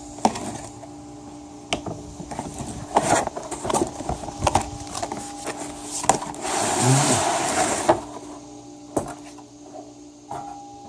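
Cardboard packaging of a Nerf gun box being opened and handled: scattered clicks and knocks, with a rustling, scraping stretch of about two seconds in the middle. A faint steady hum sits behind it.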